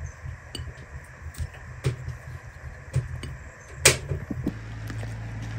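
Tomatoes being put by hand into an aluminium pot, with light knocks and clicks and one sharper knock about four seconds in, over a low rumble. A steady low hum starts near the end.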